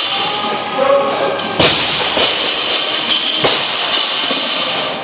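Music playing, with sharp thuds of a medicine ball during wall-ball throws, the clearest about a second and a half in and again about three and a half seconds in.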